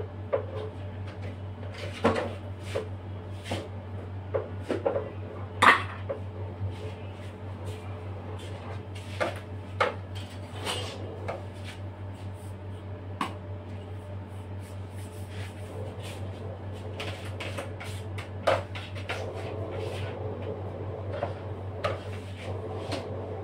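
Palette knife and scraper knocking and clicking against a plastic cream tub and a cake turntable while cream is spread, in irregular sharp taps, the loudest about six seconds in and again near eighteen seconds, over a steady low hum.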